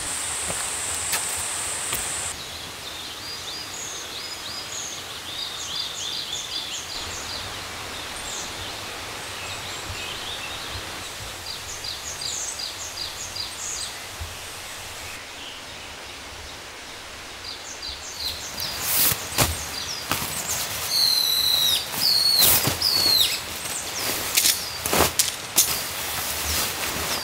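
Forest daytime ambience: a steady high insect buzz that stops about two seconds in, then small birds chirping and calling. About two-thirds of the way through, a run of sharp clicks and knocks begins, mixed with louder bird calls.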